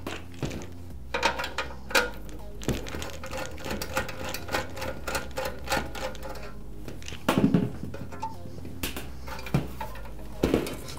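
Clicks and taps of a hex-driver screwdriver backing a small sheet-metal screw out of a heater element's flange on a sheet-metal blower housing, with knocks of the housing being handled on a metal bench, louder about seven and ten seconds in.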